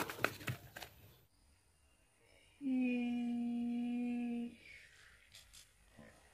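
A young child's voice holding one long, steady note for about two seconds, starting a little under halfway through.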